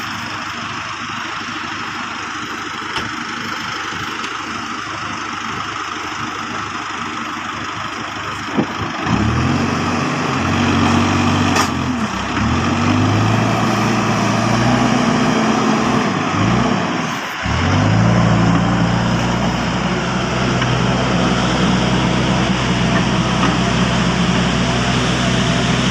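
Case backhoe loader's diesel engine working. About a third of the way in, the engine note comes up strongly and its pitch rises and falls as it is revved under load. It drops away briefly a little past the middle, then settles into a steady run. Before the engine comes up, there is a steady noisy hiss.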